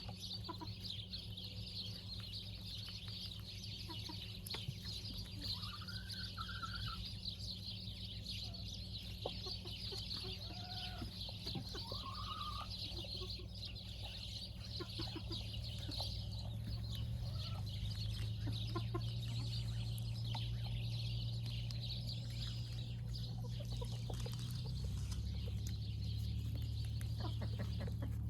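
Chickens clucking, with a few short rising calls near the middle, over a steady high hiss and a low hum that grows louder partway through.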